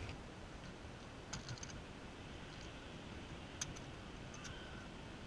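Faint steady background hiss with a few scattered light clicks, the sharpest about three and a half seconds in.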